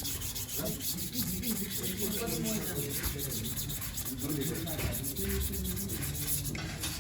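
Sanding: a steady, rapid scratchy rubbing of abrasive on a surface.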